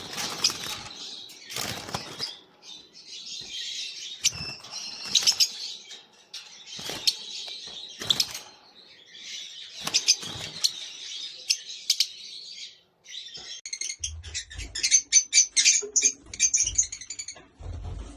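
Pet lovebirds chattering in a continuous high twittering, with several wing flutters in the first half. Over the last few seconds it turns into a quick run of sharp chirps.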